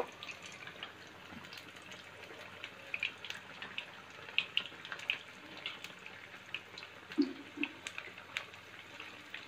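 Prawn-stuffed rice-batter vadas deep-frying in hot oil over a medium flame: a faint steady sizzle and bubbling with frequent small crackles and pops.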